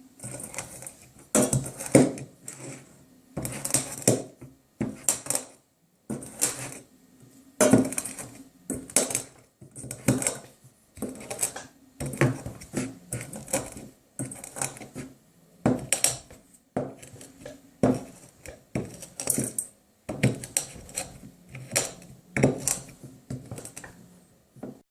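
A stone pounding whole cloves, with a little cinnamon and star anise, in a small saucepan: irregular knocks, about one or two a second, crushing the spices into coarse pieces.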